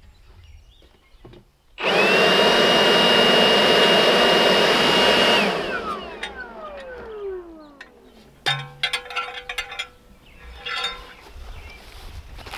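A high-speed power tool motor runs steadily for about four seconds with a high whine, then is released and spins down with a falling whine. Metal clinks and knocks follow.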